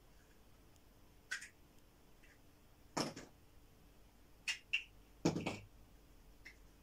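A child's toys knocking and clattering now and then: several short, sharp knocks, the loudest about three seconds in and again a couple of seconds later.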